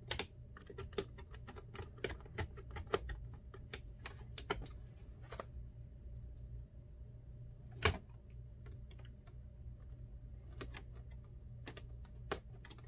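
Irregular light clicks and taps of plastic and small metal parts as a laptop is worked on by hand with a small screwdriver, busiest in the first five seconds, with one sharper click about eight seconds in, over a low steady hum.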